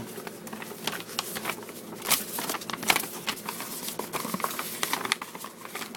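A folded paper poster being unfolded and handled: irregular rustling and crinkling paper, with sharper crackles about two and three seconds in.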